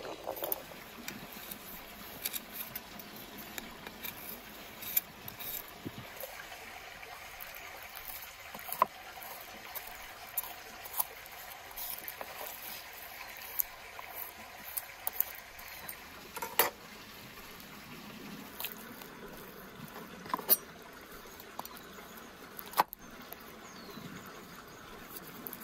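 Liquid bubbling and simmering in a cooking pan, a steady hiss broken by scattered sharp clicks.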